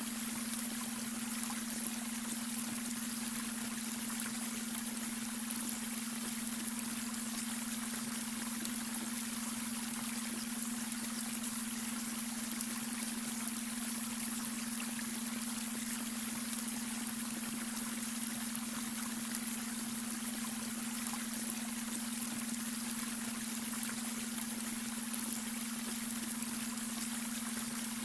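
Babbling brook water running steadily, blended with a continuous low, even tone: the beta brainwave frequency layered under the water.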